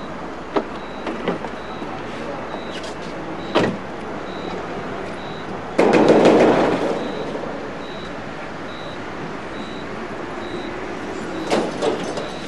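Corrugated sheet-metal garage door banged with a hand: one loud rattle about six seconds in, with a few lighter knocks and clicks before and after it.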